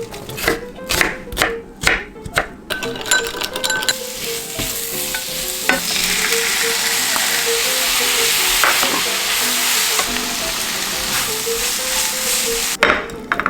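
Food frying in a pan, stirred with a spatula: a few sharp knocks and scrapes at first, then loud steady sizzling from about five seconds in that cuts off abruptly near the end.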